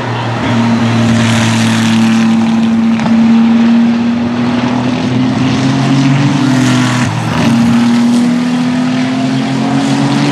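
Racing car engine at high revs, its pitch climbing slowly, dipping briefly about seven seconds in, then climbing again.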